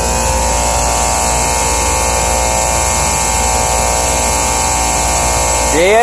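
An old Engineered Air rooftop air-conditioning unit running: its refrigeration compressor and condenser give a steady hum of several tones over a constant rush.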